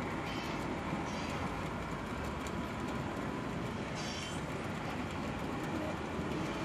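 HO scale model train running along the track: a steady rumble of its wheels and motor, with a few brief high-pitched squeals.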